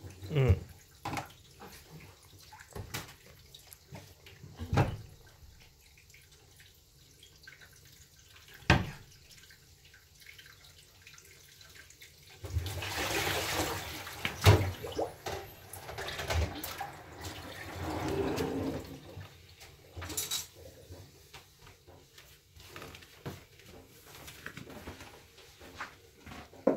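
Kitchen tap running into a sink for about seven seconds midway, with a handful of sharp knocks and clatters of kitchen things before and after.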